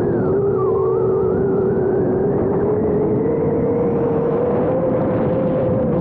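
Parrot Bebop 2 quadcopter's electric motors and propellers whirring in flight, recorded close up by a camera mounted on the drone. A steady hum slowly rises in pitch, over a low rush of wind.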